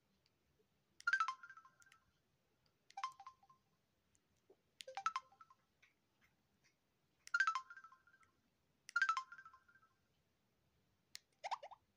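Samsung SGH-Z400 mobile phone playing short electronic key tones as its navigation key is pressed through the menus, six in all about two seconds apart. The last is a quick rising chirp.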